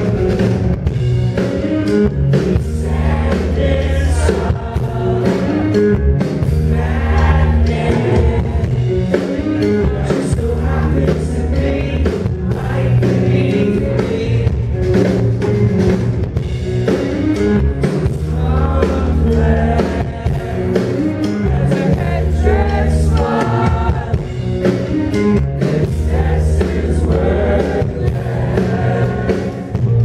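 A rock band playing live, with a man singing into a microphone over the band.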